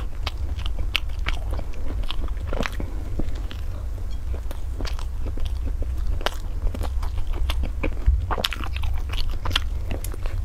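Close-miked eating of a flaky baked pastry: pieces torn off and bitten, then chewed with wet mouth sounds, giving many small irregular crackles and clicks. A steady low hum runs underneath.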